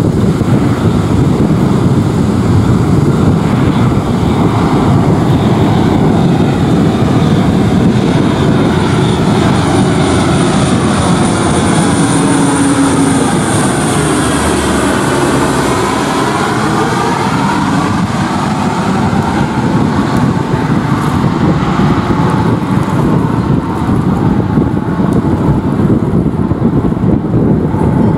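Four-engine Lockheed P-3 Orion-family turboprop with Allison T56 engines passing low overhead on its landing approach. The propeller and engine drone is steady, and a high turbine whine builds as it nears. About halfway through, the pitch sweeps down as it passes and then recedes.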